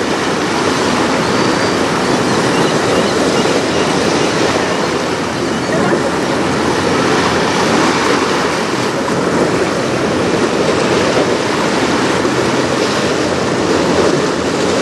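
Steady rush of wind and choppy waves.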